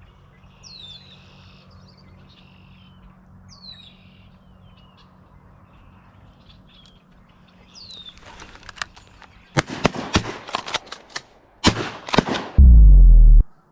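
Incoming ducks calling with high, falling whistles. Then a fast run of loud sharp cracks, a second cluster of them, and a very loud low blast near the end.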